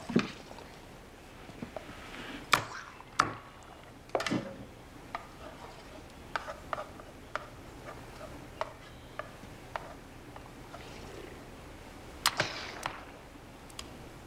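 Spoon knocking and scraping against a cooking pot as food is dished into bowls: a series of sharp clinks and knocks, several loud ones in the first few seconds and two more near the end, with lighter taps between.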